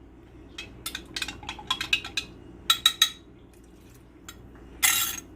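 Spoon clinking against a pot while gravy is stirred: a string of light, quick clinks, then one louder, longer clatter near the end.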